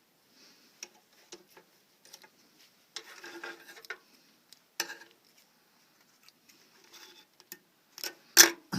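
A treadle-driven Singer 29-4 leather patcher sewing machine stitching slowly: irregular mechanical clicks and ticks from the needle and shuttle mechanism, a short rattling run about three seconds in, and a couple of louder clacks near the end.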